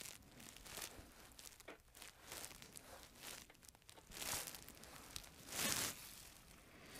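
Quiet rustling and crinkling as small carburetor rebuild parts are handled and set down on a paper shop towel. There are two louder rustles, about four and five and a half seconds in.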